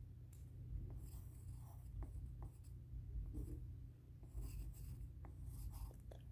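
Graphite pencil scratching on paper while sketching, in a string of short, irregular strokes.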